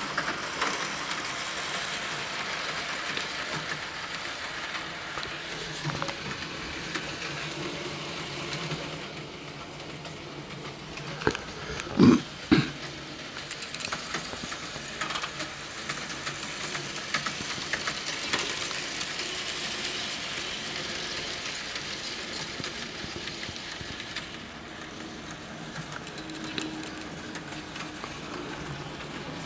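Märklin HO model train running around the track: a steady rattle of small wheels on the rails with the hum of its electric motor. Three sharp knocks about halfway through, the middle one loudest.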